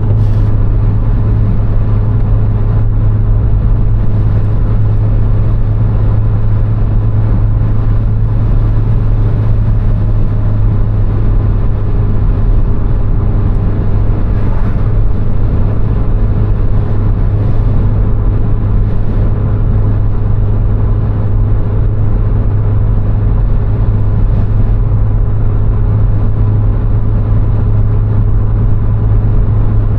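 A VW Golf IV 1.6 four-cylinder petrol car cruising at a steady speed: a constant engine drone mixed with tyre and road noise.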